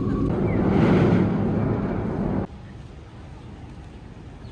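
Street traffic noise: a road vehicle passing, its rumble swelling about a second in. It cuts off abruptly partway through to a much quieter background hum.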